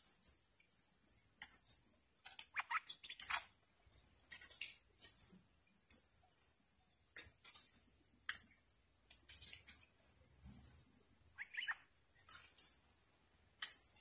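Stripe-throated bulbuls calling: short sharp chirps and call notes in irregular runs, a few louder notes standing out, over a steady high-pitched buzz.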